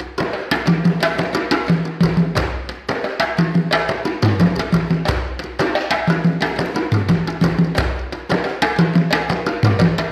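Two djembes played by hand in a fast interlocking rhythm, sharp slaps and tones several per second, over a repeating pattern of deep low notes that comes round about every two seconds.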